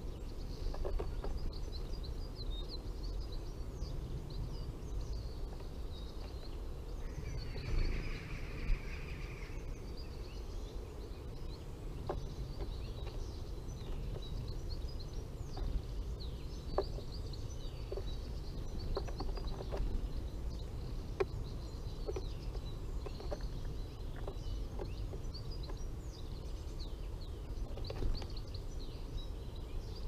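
Small woodland birds chirping and calling on and off throughout, over a steady low rumble. A few sharp clicks stand out here and there.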